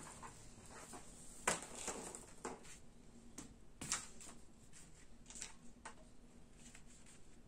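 Scattered light taps and clicks of small objects being handled and set down on paper: a small wire-mesh basket and a packaged disposable grill with a wire mesh. The sharpest taps come about one and a half seconds in and again about four seconds in.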